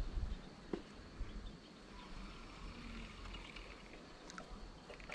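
Outdoor ambience: a low rumble of wind on the microphone, a few sharp knocks in the first second, and faint bird chirps in the middle.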